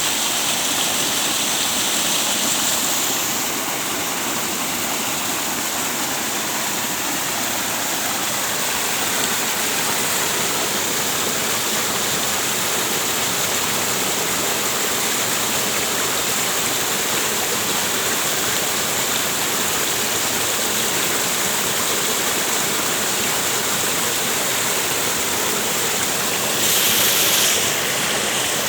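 Rushing water, a steady loud hiss of flowing or falling water, with a brief louder surge of hiss near the end.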